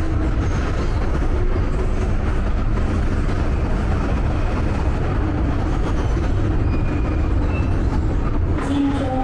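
Hong Kong MTR underground train running with a steady low rumble.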